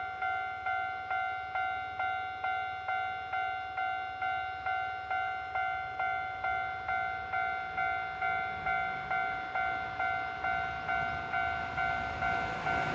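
Japanese railway level-crossing alarm ringing in an even clang, a little over two strikes a second, warning of an approaching train. In the last second the noise of the train coming in begins to rise under it.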